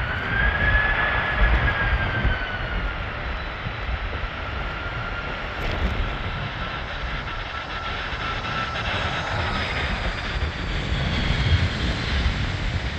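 The jet engines of a KLM Airbus A330 on its landing roll-out: a steady roar with a high whine that slowly falls in pitch as the airliner rolls past. Gusty wind rumbles on the microphone underneath.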